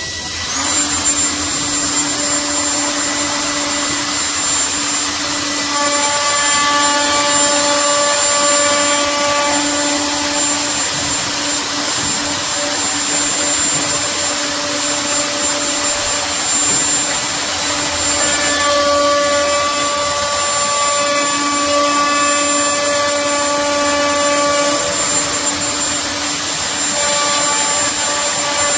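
Electric plunge router switched on about half a second in, spinning up to a steady high whine, then routing the edge of a wooden board, the tone of the cut coming and going in spells as it is pushed along.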